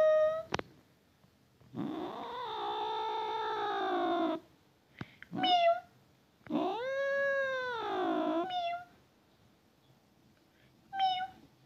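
Domestic cat meowing: two long, drawn-out meows of two to three seconds each, the second rising and then falling in pitch, with short chirp-like meows between and near the end.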